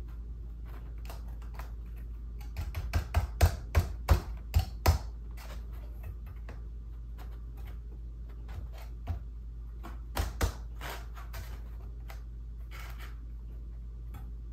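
Light clicks and taps from a metal straightedge and foam incline risers being nudged into line by hand against a clamped wooden guide. A quick run of taps comes a few seconds in, and a few more later.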